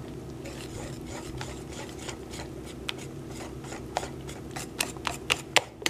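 Wire whisk beating soft cheese into a thick batter in a plastic bowl: the wires scrape and click against the bowl, the clicks coming faster and sharper in the second half. A steady low hum runs underneath.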